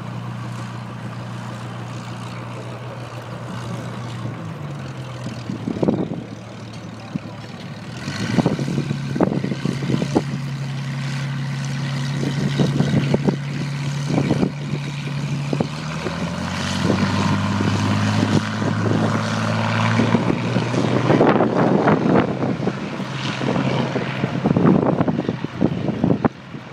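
Hawker Hurricane's Rolls-Royce Merlin V12 engine running at low power on the ground, its pitch dropping about four seconds in and rising again around sixteen seconds. Wind buffets the microphone.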